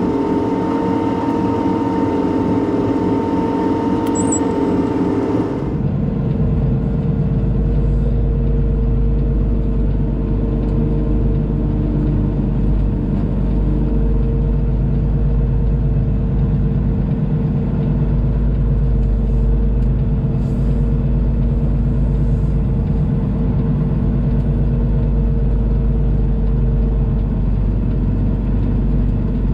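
Peterbilt semi truck's diesel engine running as the truck rolls slowly across a lot, heard from inside the cab. About six seconds in the sound changes suddenly: the higher hiss drops away and a deep low rumble takes over.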